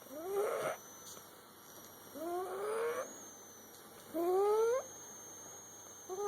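Cat snoring in its sleep: a short tone that rises in pitch with each breath, about every two seconds, four times.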